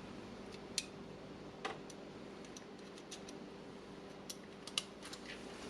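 Faint, irregular small clicks and ticks of a new carbon brush being slid in and out of its brush holder on a Bosch hammer drill, checking that it moves freely.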